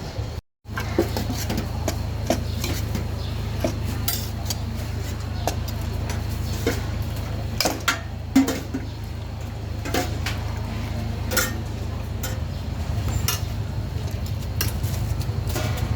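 Metal kitchen utensils clinking and knocking against bowls and pots in scattered, irregular strikes over a steady low hum. The sound cuts out for a split second about half a second in.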